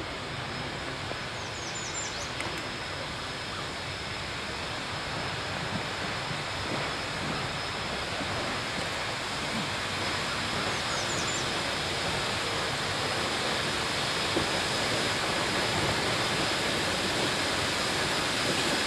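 Shay geared steam locomotive hissing steam in a steady rush, growing gradually louder as the engine draws nearer.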